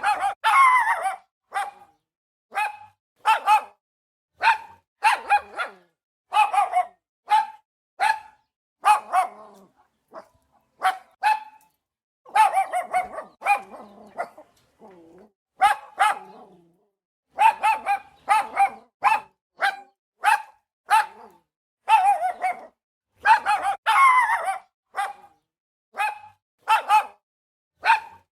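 A dog barking over and over, short separate barks about one or two a second, with a few brief pauses.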